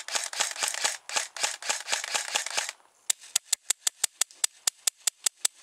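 Airsoft rifles firing rapid strings of shots as sharp clicks. The first run comes about six or seven shots a second; after a short break near the middle, a second, crisper run follows at about four or five shots a second.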